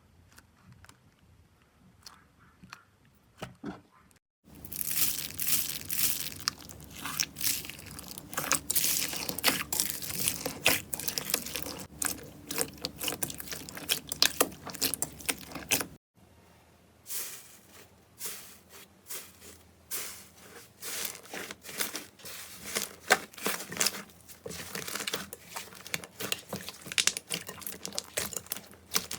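Slime being squeezed and pressed by hand, making dense sticky crackling and crunching, like many tiny pops. It starts faint with a few scattered clicks, gets much louder a few seconds in, breaks off abruptly about halfway, then resumes crackling.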